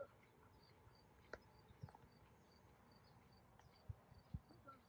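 Near silence, with an insect's faint high chirp repeating steadily about three times a second and a few soft knocks.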